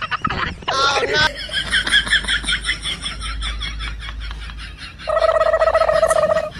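Comic sound effects: a short rising squeal, then a rapid run of high chattering sounds, about five a second, that fades away. Near the end a steady buzzing tone is held for about a second and a half and cuts off suddenly.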